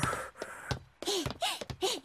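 A cartoon dog voiced by an actor, panting in short breathy gasps with little whimpers between them.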